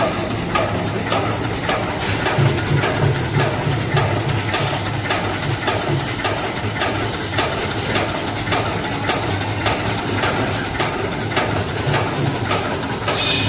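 Snack pellet production machinery running: a steady hum and a thin high whine, with a regular knock about twice a second.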